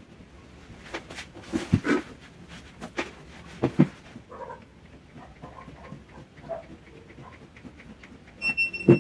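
Knocks and handling sounds of a fabric-covered cardboard box being worked by hand, the loudest bumps coming in clusters about two and four seconds in. Near the end there is a short, high-pitched squeak.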